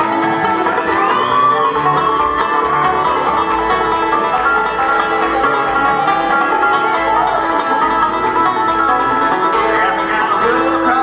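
Live bluegrass band playing: banjo, fiddle, acoustic guitar, dobro and upright bass together, with some sliding notes.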